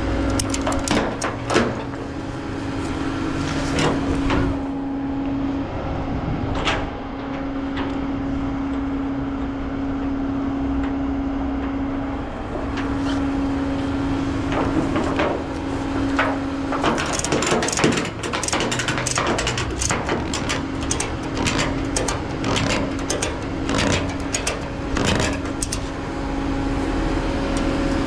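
Engine running steadily with a constant hum, with scattered sharp metallic clicks and clanks that come thick and fast in the second half.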